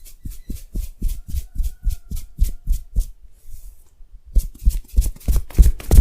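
Rhythmic massage tapping: hands striking the body in a steady beat of about four dull slaps a second. The beat stops for a brief soft rub a little past halfway, then resumes louder.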